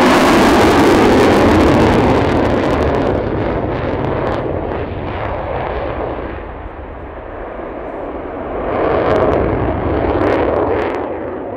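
Loud jet noise from a Eurofighter Typhoon's two Eurojet EJ200 afterburning turbofans on a display pass, in afterburner at the start. It fades and dulls for a few seconds as the jet draws away, then swells again near the end with a few sharp crackles.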